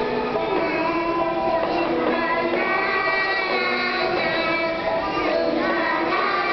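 A group of young children singing a song together in unison, holding long notes.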